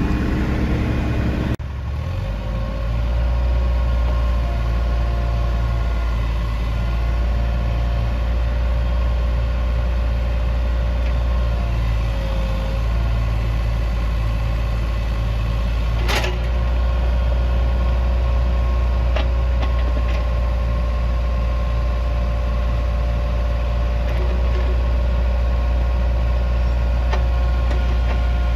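Caterpillar 303.5E2CR mini excavator's diesel engine running steadily with a deep hum. The engine note changes abruptly about a second and a half in, and a single sharp clack comes about halfway through.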